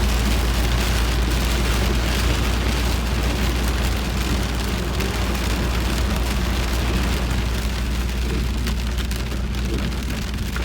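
Heavy rain mixed with hail drumming on a car, a dense hiss of many small hits heard from inside the cabin over the car's steady low rumble.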